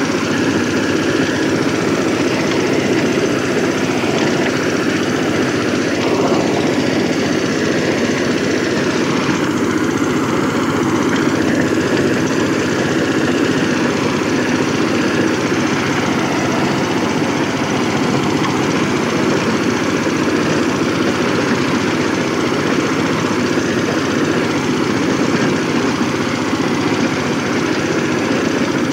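VST Shakti 130 DI power tiller's single-cylinder diesel engine running steadily under load while the machine tills the field.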